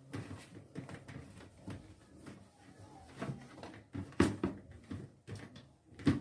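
Irregular clatter and knocks of kitchen things being handled, with a sharp loud knock about four seconds in and another near the end.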